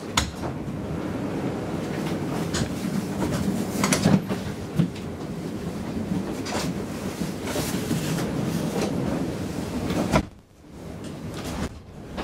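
Inside a stationary A32 tram standing at a stop: a steady hum of onboard equipment with scattered knocks and clicks. About ten seconds in there is a thud, and the hum briefly drops away before it returns.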